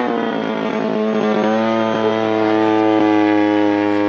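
Engine of a giant-scale 110-inch radio-controlled Spitfire model in flight, a steady droning note. It drops sharply in pitch at the start, then holds steady.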